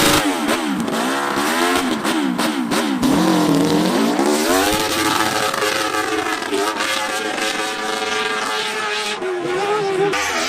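Dirt bike engine revving hard on a climb, its pitch rising and falling several times as the throttle is worked, then climbing about halfway through and held high and steady.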